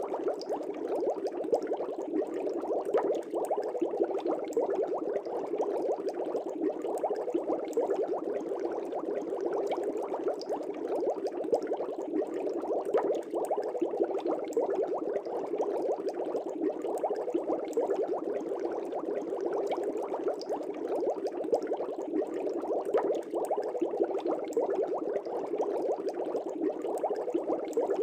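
Aquarium bubbles: a steady, unbroken bubbling of water with many small pops and gurgles.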